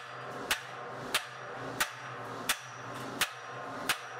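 Metal struck six times at an even pace, about one sharp strike every two-thirds of a second, over a steady low hum.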